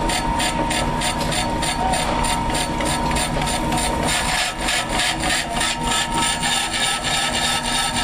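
Brake lathe running with a brake rotor spinning on its arbor, the cutter tips just touching the disc faces, a steady hum under a rhythmic scraping about four to five times a second.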